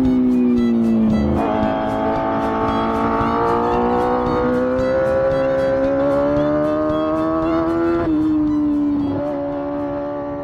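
250cc four-cylinder engine of a custom Honda Gorilla minibike running hard through its new silencer, its high steady note dipping and climbing with the throttle and dropping suddenly about eight seconds in. Music plays underneath.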